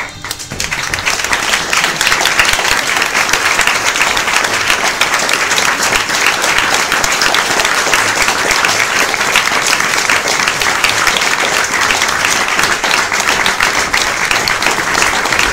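Audience applauding: many people clapping, swelling over the first couple of seconds and then holding steady.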